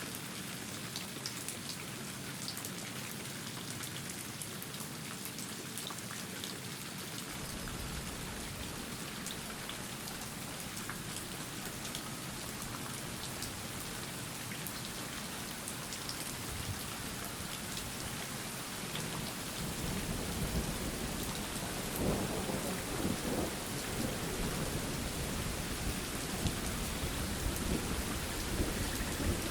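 Steady rain falling, with individual drops ticking on a surface. About two-thirds of the way in, low thunder begins rumbling and grows louder, swelling and rolling on to the end.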